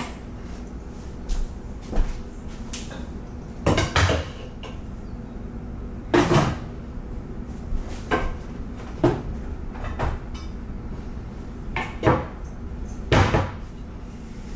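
Kitchen cabinet doors opening and shutting, with dishes being handled: about eight separate, irregular knocks and clatters.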